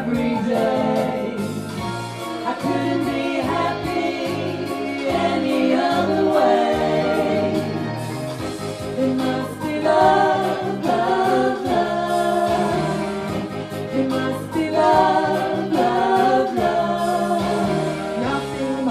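Four women singing in close harmony over steady low backing notes, the voices moving together as a group rather than a single lead.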